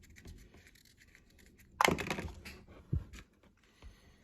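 Small plastic miniature food pieces and toy fridge parts being handled: light clicks and scrapes, with one louder clatter about two seconds in and a short knock about a second later.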